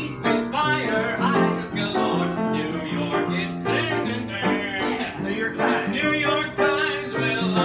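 Upright piano playing a show-tune accompaniment, with voices singing over it.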